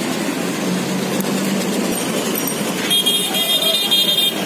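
Steady street-traffic din, with a vehicle horn sounding from about three seconds in.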